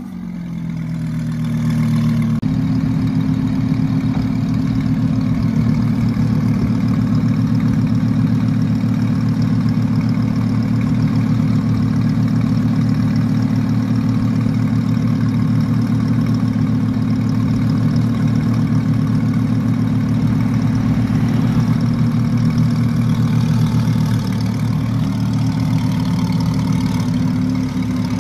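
Audi R8's V10 engine idling steadily through its exhaust, settling out of a rev in the first couple of seconds.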